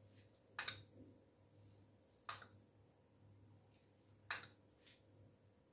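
Three short, sharp clinks about two seconds apart: a spoon knocking against a glass bowl as milk is scooped and spooned over a cake. A faint steady hum runs underneath.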